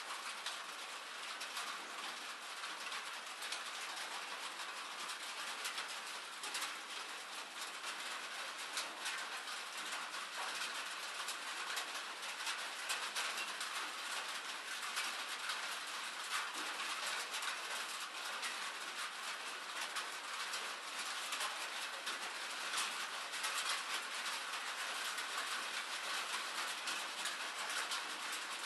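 Steady rain pattering: a dense, even hiss of many small drop ticks.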